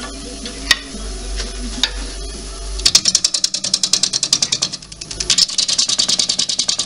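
Wood lathe spinning a wet cherry-wood bowl blank while a bowl gouge cuts into it. After a few seconds of lighter cutting over the lathe's hum, the gouge starts a fast run of sharp, even ticks, roughly ten a second, which eases briefly and then picks up again.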